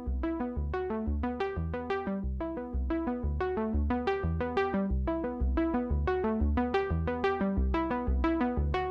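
Electronic background music: quick repeating synthesizer notes over a steady low beat.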